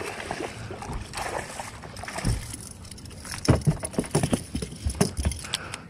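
Scattered knocks, clicks and a few low thuds of gear being handled aboard a fishing boat.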